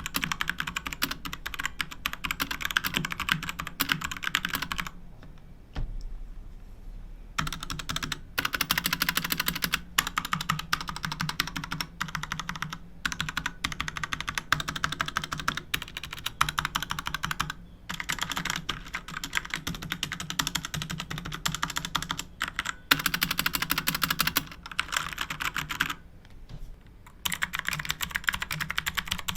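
Fast, continuous typing on a mechanical keyboard, a dense stream of key clicks. It breaks off for about two seconds some five seconds in, and briefly again near the end.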